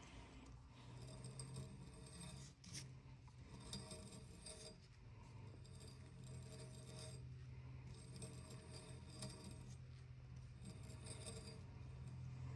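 Faint metallic clinks and rattles of a motorcycle wheel hub being handled and clamped for a runout check, over a low steady hum.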